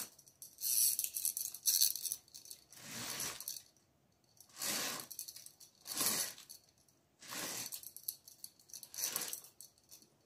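Curtain being drawn open in a series of tugs, rattling as it slides: about seven short swishing bursts, a second or so apart.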